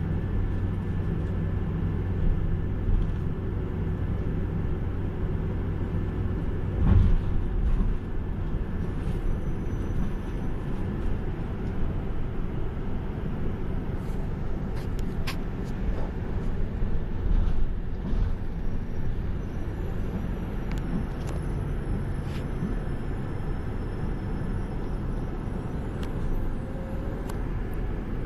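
Engine and road noise heard from inside a moving bus: a steady low drone, with one louder thud about seven seconds in.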